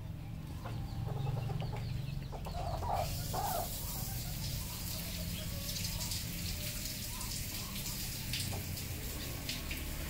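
Red junglefowl clucking, a few short clucks in the first half, over a steady low rumble; a hiss comes in about three seconds in.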